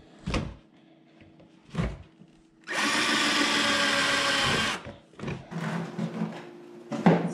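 Black+Decker cordless drill running for about two seconds, driving a screw into the plastic lid of a cat litter pail. It comes after two short thumps and is followed by a string of knocks and clacks on the plastic pail and lid, the loudest near the end.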